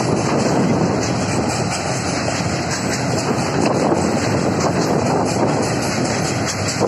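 Freight train's flat wagons rolling past close by: a loud, steady rumble and rattle of steel wheels on the rails.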